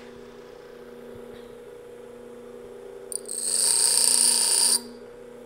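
Bench grinder running with a steady hum; about three seconds in, the point of a twist drill bit is pressed to the spinning wheel and grinds with a loud, high rasp for about a second and a half, then stops. This is the bit's split center being ground a little further.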